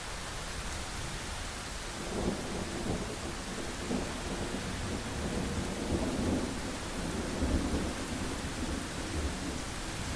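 Steady rain hiss with a long roll of thunder that rumbles in about two seconds in, swells and ebbs, and fades away near the end.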